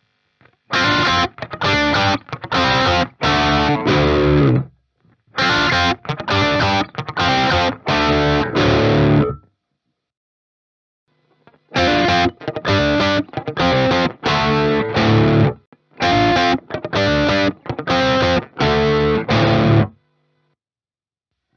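Ibanez Axion Label RGD71ALMS seven-string electric guitar with Fluence Modern Ceramic pickups, played through a distorted amp simulator. It plays short, choppy chords in phrases broken by brief silences, with a pause of about two seconds midway.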